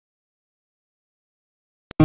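Dead silence, broken near the end by a single short click.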